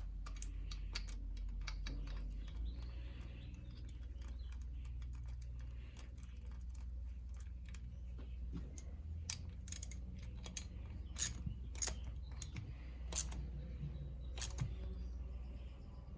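Scattered light clicks and taps of a hand tool snugging down the small M6 bolt that retains the oil pump pickup in the engine case, over a low steady hum. The clicks come more often and sharper in the second half.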